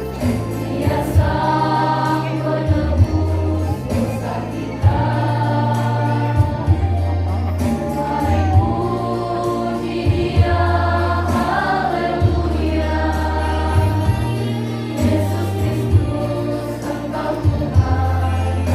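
Youth choir of young men and women singing a Christian praise song over an instrumental accompaniment whose low bass notes change every second or two.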